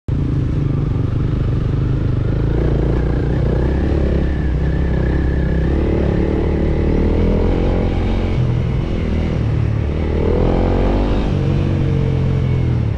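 Motorcycle engine running under way, heard from on board with a heavy low rumble; the revs climb about ten seconds in.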